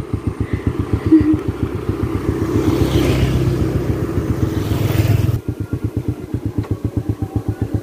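Motorbike engine running slowly with a steady, even pulsing. Another motorbike approaches and passes, its engine noise growing louder from about two seconds in until the sound cuts off suddenly at about five seconds.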